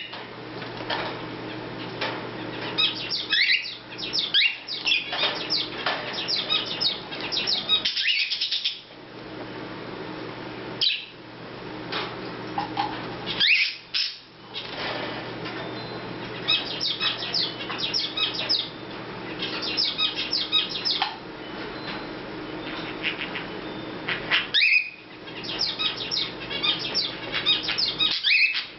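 Cockatiel chattering: clusters of rapid, high chirps broken by a few short rising whistle calls, over a steady low hum.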